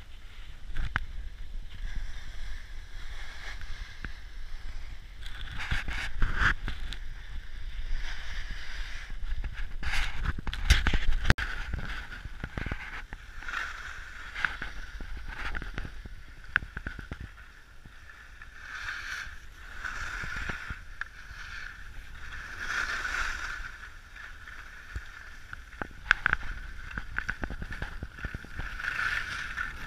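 Edges scraping and carving on packed snow during a fast downhill run, with a hiss that swells and fades with each turn and scattered knocks over bumps. Wind buffets the microphone throughout.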